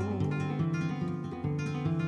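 Flamenco acoustic guitar played solo: a quick run of plucked notes with low bass notes, between the singer's lines.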